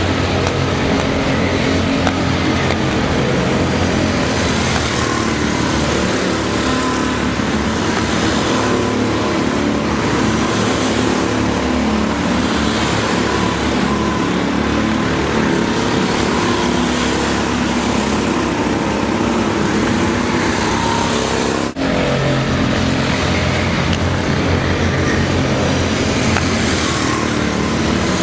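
Go-kart engines running under race load, a loud, steady engine drone whose pitch wavers slightly, with a brief drop in level about 22 seconds in.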